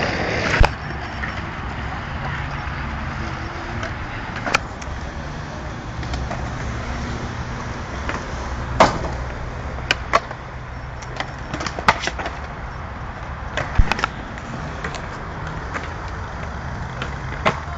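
Skateboard wheels rolling on concrete with a steady low rumble, broken by about ten sharp clacks of boards hitting the ground, spread unevenly through.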